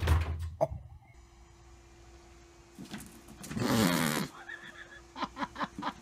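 A cat falling off a carpeted cat tree, landing with thumps and knocks. A few seconds later comes a loud cry whose pitch bends, then a quick run of short pitched calls near the end.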